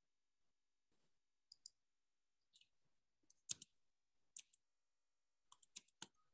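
Near silence broken by about a dozen faint, sharp clicks, scattered and some in quick pairs, the strongest about three and a half seconds in.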